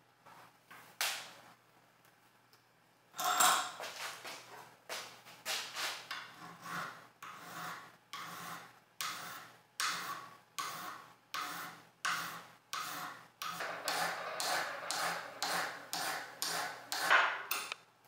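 Flat hand file rasping across a metal model-engine crankcase half held in a bench vise, rounding it off. After a few light strokes, steady back-and-forth filing starts about three seconds in and runs at about two strokes a second.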